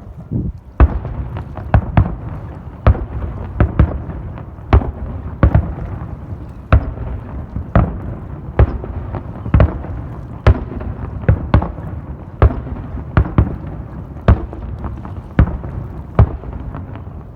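Fireworks display: aerial shells bursting in a string of about twenty sharp booms, roughly one a second, over a continuous low rumble and echo.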